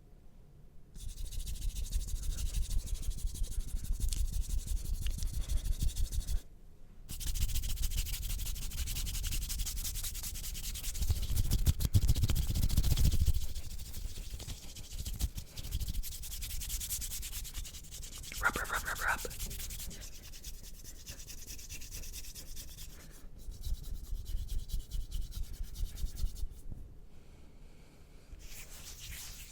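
Fast, aggressive hand rubbing and scratching: palms and fingers brushing against each other in rapid strokes. It pauses briefly about six seconds in, is loudest around twelve seconds, and grows softer in the last third.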